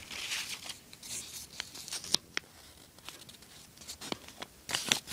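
Paper raffle slips being handled and unfolded: rustling and crinkling, with a few sharp clicks in between.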